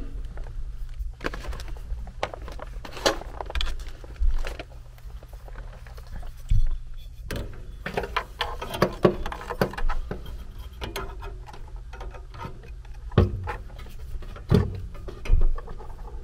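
Scattered clicks, taps and small knocks of hand work inside a sheet-metal furnace cabinet: screws and small metal parts being picked up and handled while a hot surface igniter is fitted. There are a few sharper knocks about three, four, six and a half, nine, thirteen and fifteen seconds in.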